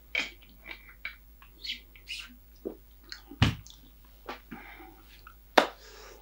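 Small close-up sounds of a person settling in front of the microphone after drinking: scattered lip smacks and mouth clicks with light rustling, a low thump about three and a half seconds in and a sharp, louder burst near the end.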